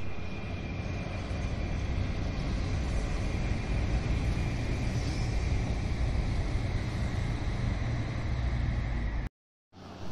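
Shinkansen train running past on an elevated viaduct: a steady rushing rumble with a thin high whine that sinks slightly in pitch, cutting off suddenly about nine seconds in.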